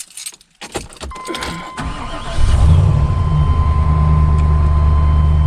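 Truck engine cranked and started about two seconds in, then running at a steady idle. A few clicks come first, and a steady high-pitched electronic tone sounds from about a second in.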